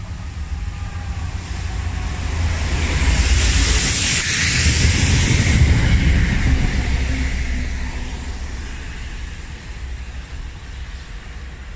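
Class 66 diesel freight locomotive passing close by with its wagons: the diesel engine's rumble and the clatter and hiss of wheels on rails build up, are loudest from about three to six seconds in as the locomotive goes past, then fade as the train moves away.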